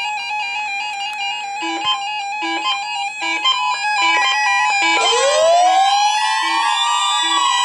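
Instrumental music with a stepping melody and a short low note repeating about every 0.8 s. About five seconds in, several siren wails wind up over it and glide up and down in pitch.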